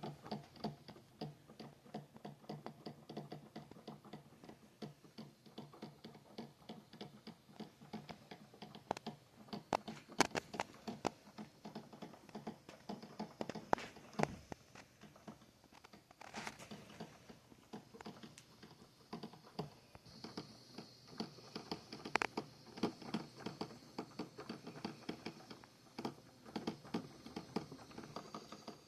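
Black & Decker Spacemaker under-cabinet drip coffee maker brewing: a fast, irregular run of small pops and ticks as the water heats and sputters through, with a few sharper clicks and a faint steady hiss joining past the middle.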